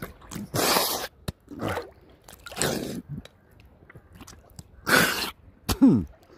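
A man rinsing his nose with seawater: several short, forceful snorts and blows as water is drawn in and blasted out of the nose, about one every second or two, with a brief throat-clearing sound falling in pitch near the end.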